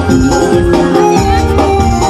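Loud music playing: sustained melodic notes over a bass line.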